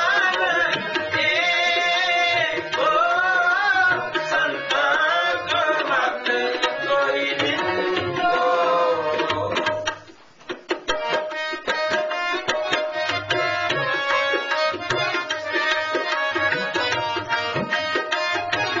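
Sikh shabad kirtan: a raagi sings over harmonium and tabla. About halfway through the music drops out for a moment, then the harmonium and tabla carry on with steady held chords and quick tabla strokes.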